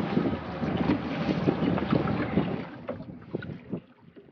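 Wind buffeting the microphone on a boat at sea, with scattered knocks and thumps; it fades away about three seconds in.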